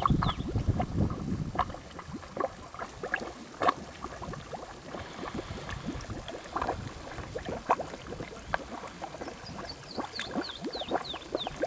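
Water gurgling and splashing in irregular clicks and plops, with low wind rumble on the microphone at the start. Near the end a bird calls a quick run of short descending notes.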